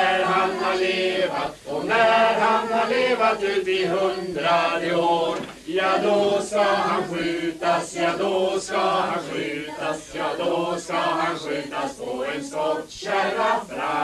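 A group of men and women singing a birthday song together.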